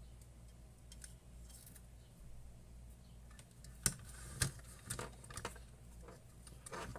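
Small clicks and taps of hands handling small hard parts of an electronic instrument, sparse at first, then several sharper clicks from about four seconds in, over a faint low hum.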